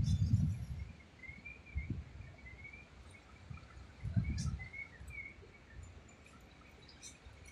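Wind buffeting a phone's microphone in gusts, strongest at the start and again about four seconds in, with faint short high chirps repeating throughout.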